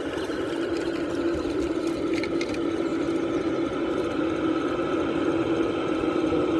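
Radio-controlled model truck's drive, a steady mechanical whine holding one pitch.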